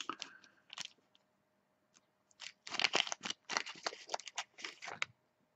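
Small clear plastic bag crinkling and crackling as fingers open and handle it, in irregular bursts that grow busier from about two and a half seconds in.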